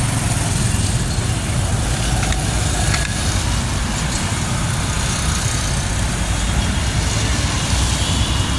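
Steady vehicle noise with a deep low rumble.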